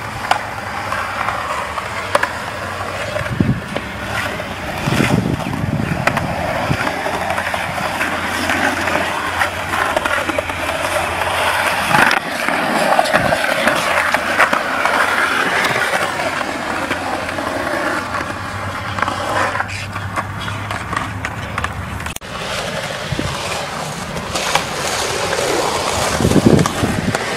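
Skateboard wheels rolling on smooth concrete, a continuous rolling rumble broken by a few sharp clacks of the board hitting the ground.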